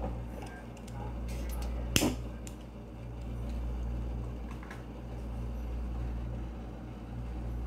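Metal kettle heating on a gas stove burner: a steady low rumble with scattered faint ticks, and one sharp click about two seconds in.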